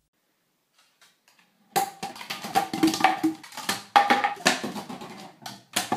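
Empty plastic soda bottles set up as bowling pins, knocked over by a dog and clattering and rolling on a wooden floor: a burst of hollow knocks starting about two seconds in, then a run of irregular clatters.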